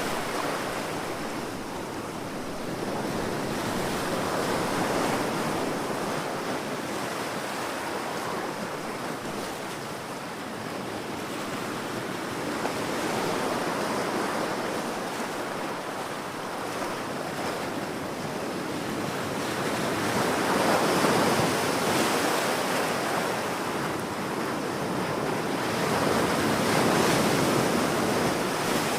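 Ocean waves washing onto a shore, a steady rushing of surf that swells and ebbs every several seconds, the loudest surge about three-quarters of the way through.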